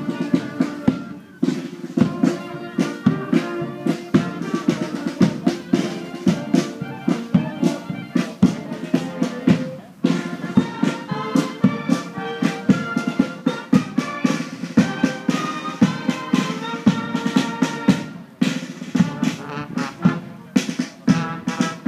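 Military brass band playing a march outdoors, brass carrying the tune over a steady drum beat with snare drum.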